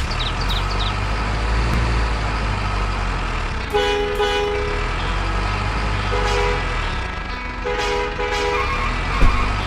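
Heavy truck engine running steadily under several blasts of a two-tone truck horn, starting about four seconds in and again around six and eight seconds.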